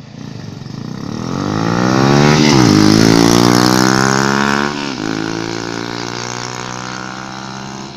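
Two tuned four-stroke underbone motorcycles, a Honda Revo and a Yamaha Vega, racing past at full throttle. The first engine's pitch drops sharply as it passes about two and a half seconds in, the second about five seconds in, and the engines then fade away.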